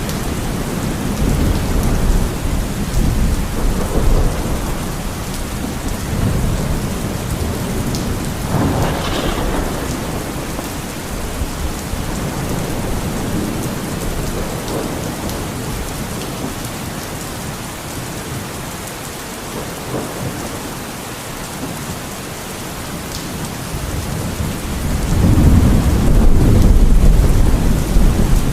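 Steady rain falling in a thunderstorm, with rolls of thunder: a deep rumble at the start, a sharper crack about nine seconds in, and a louder long rumble swelling near the end.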